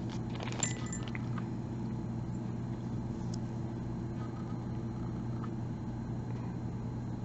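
Thin plastic jewellery bag crinkling and clicking during the first second or so, over a steady low mechanical hum that runs throughout.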